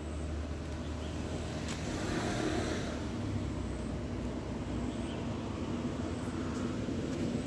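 Road traffic: a steady low hum of passing vehicles, swelling about two seconds in as a vehicle draws closer.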